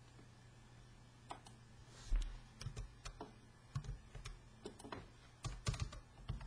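Computer keyboard being typed in irregular, scattered clicks as numbers are keyed in, some keystrokes landing with a dull low thump; the first second is quiet.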